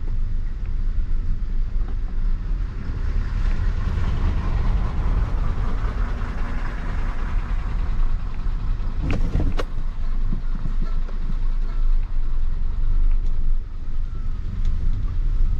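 Maruti Suzuki Ignis heard from inside the cabin, driving slowly in second gear on a rough unpaved road: a steady low rumble of engine and tyres, with two sharp knocks a moment apart about nine seconds in.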